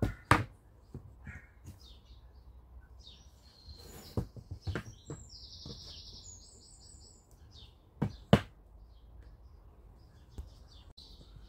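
A small bird chirping, with a rapid trill a little past the middle. There are sharp knocks in pairs at the start and again about eight seconds in.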